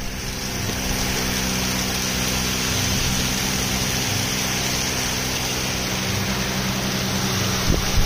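Wheat grain pouring in a steady stream into a steel hopper, making a continuous hiss over a steady low machine hum.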